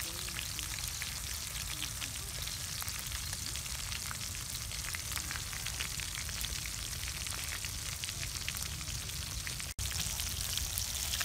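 Whole fish frying in hot oil in a metal wok: a steady sizzle dotted with many small crackling pops. The sound drops out for an instant about ten seconds in.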